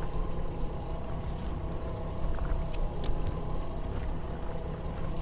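Twin Honda 225 outboard motors running steadily at low speed, pushing the boat along at a slow trolling pace, with a steady low rumble, water and wind noise, and a few faint light clicks.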